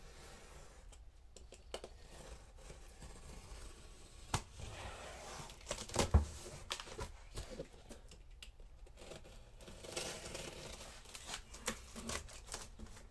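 A knife slitting the plastic wrap and tape along the seam of a cardboard box, with faint scraping and crinkling of plastic film and a few sharp clicks, the loudest about six seconds in.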